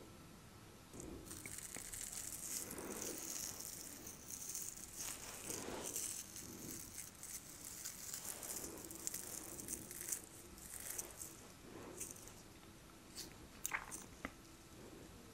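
Long acrylic fingernails scratching and picking through a man's beard close to the microphone. A dense crackly scratching starts about a second in, then thins to a few separate clicks near the end.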